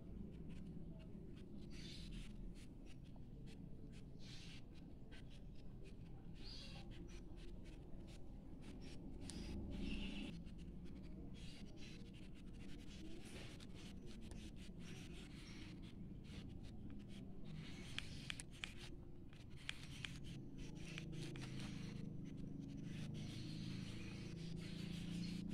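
Marker pen scratching across notebook paper in many short strokes, faint, over a low steady hum.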